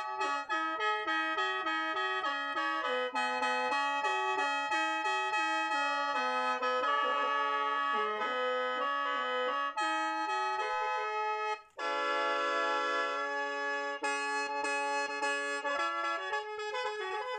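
Khaen, the Lao bamboo free-reed mouth organ, playing a quick-moving tune over steady drone notes. It breaks off for an instant about twelve seconds in, comes back with a held chord, then the tune picks up again.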